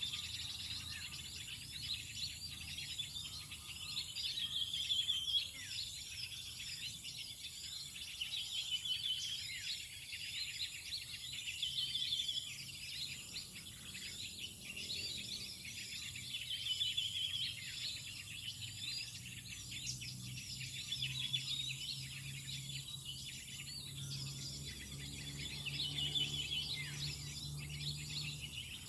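Many small birds chirping densely and continuously, with one louder short call phrase repeating about every four seconds.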